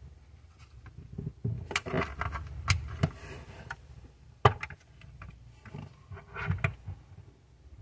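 Handling noise from a diecast model car: irregular clicks, knocks and light scrapes as it is turned over in the hand and set down on its wheels, with one sharp knock about four and a half seconds in.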